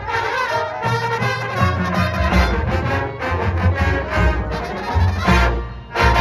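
High school marching band playing its field show: brass section with trumpets and trombones over drums.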